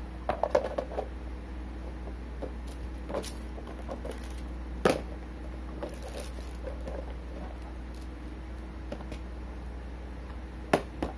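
Hard plastic lunch box and lids of a Tupperware Jolly Tup being handled. There is a quick cluster of taps and clacks in the first second, a single sharp clack about five seconds in, and two more clacks near the end, over a steady low hum.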